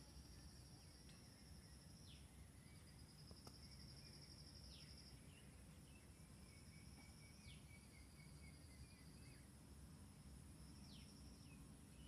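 Near silence: faint background hiss with a high trilling call repeating about every three seconds, each trill ending in a quick falling note.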